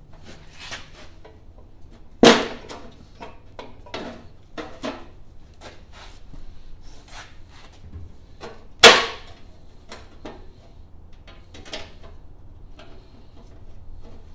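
Screwdriver clicking and scraping against the sheet-metal muffler cover of an Ingersoll garden tractor as it is being unscrewed, with two loud, sharp metal knocks, one a little over two seconds in and one about nine seconds in.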